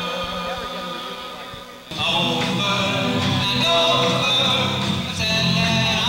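Live rock band music with a group of men singing. The sound thins and dips, then the full band comes in loud about two seconds in, with heavy bass.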